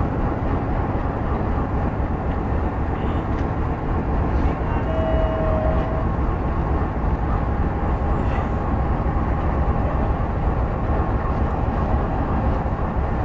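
Diesel locomotive engine running with a steady low rumble as it shunts slowly back to be coupled at the rear of the train as a second engine for the climb. A short faint tone sounds about five seconds in.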